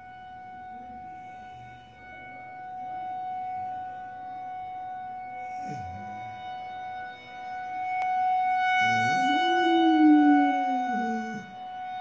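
Tornado warning siren holding a steady high tone. About nine seconds in, a dog gives one howl that rises quickly, then slides slowly down over about two seconds.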